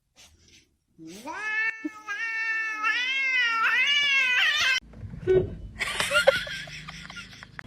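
A cat yowling: one long drawn-out meow lasting about four seconds, rising at first and then wavering in pitch, that cuts off abruptly. After it comes a rustling, hissing noise with scattered clicks.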